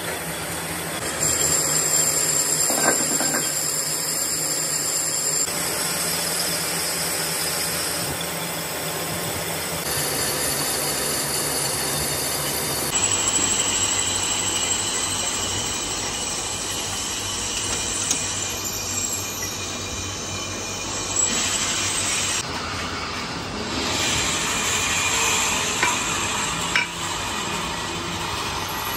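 Metal lathe turning a vented brake disc while the cutting tool machines its face: a steady machine hum with a thin, high cutting whine. Near the end come a few sharp metal clinks as finished discs are handled.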